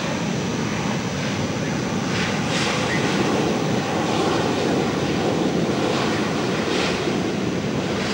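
Boeing 737-300 jet engines on a landing rollout: a steady, loud rushing noise that swells a little through the middle.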